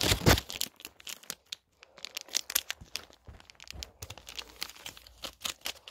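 Wrapper of a sour gum stick being crinkled and torn open by hand: a run of sharp, irregular crackles, loudest just after the start.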